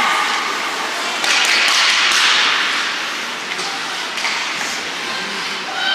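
Ice hockey play: scattered taps and knocks of sticks and puck on the ice, with a rush of noise between about one and three seconds in.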